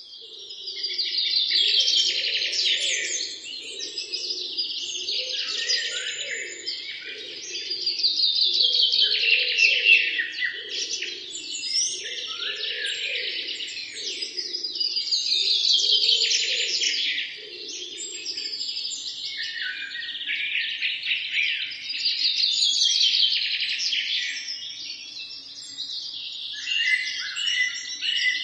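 Birds chirping and trilling in dense, rapid song that swells and fades about every seven seconds. A lower pulsing sound runs beneath it for roughly the first half.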